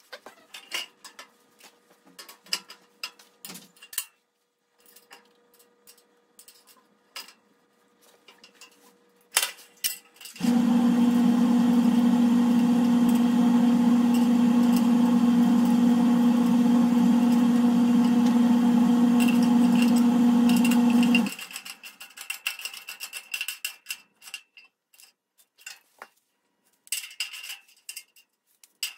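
Small metal clinks and clicks of nuts, washers and the steel dethatcher extension being handled and fitted. About ten seconds in, a loud steady hum cuts in at one even pitch and stops abruptly about eleven seconds later.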